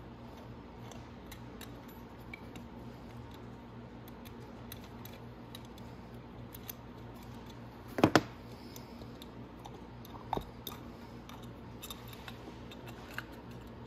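Light metallic clicks and ticks of a hex key and small parts as the float bowl of a Nibbi carburetor is unscrewed by hand. A sharp double knock comes about eight seconds in and a smaller one about two seconds later.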